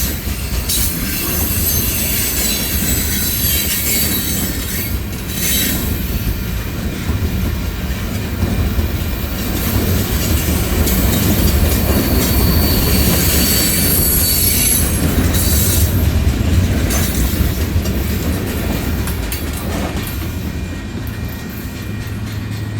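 Freight train cars rolling past with a steady rumble of steel wheels on rail, a few clacks over the rail joints and a thin high-pitched wheel squeal. The squeal fades near the end.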